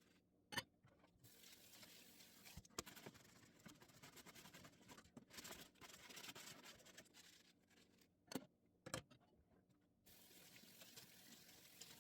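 Faint cleaning noises: soft rubbing or wiping hiss with a few sharp knocks and clicks, about four in all.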